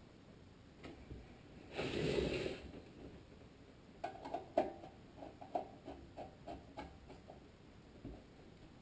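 Screws on the sheet-metal heat box of a Tecumseh HSK70 engine being snugged up with a screwdriver: a run of light, irregular clicks and taps from the tool and screws, after a short burst of noise about two seconds in.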